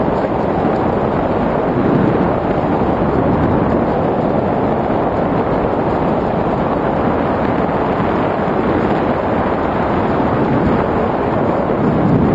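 Steady wind rushing over the camera's microphone during a tandem parachute descent under an open canopy.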